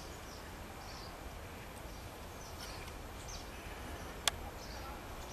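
Outdoor ambience with small birds chirping briefly now and then, and one sharp click about four seconds in.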